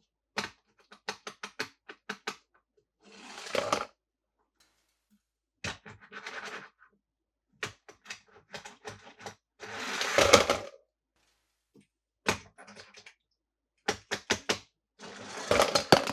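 Hands handling plastic toy packaging and die-cast toy cars: runs of quick clicks and taps, broken by short rustling or scraping spells, the loudest about ten seconds in.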